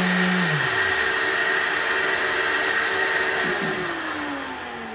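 Hyper Tough 2.5-amp 5-inch random orbital sander running with a steady electric-motor whir, its pitch dropping about half a second in; near the end it is switched off and the whine falls as the motor winds down. The owner finds this sander spins very slowly.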